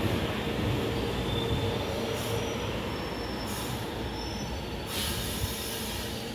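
Metrô DF subway train running past the platform: a steady rumble of wheels on rail with thin, drawn-out squealing tones over it.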